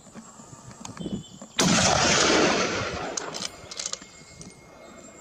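A single gunshot about a second and a half in, followed by a long echo that rolls back off the hillside and fades over a couple of seconds.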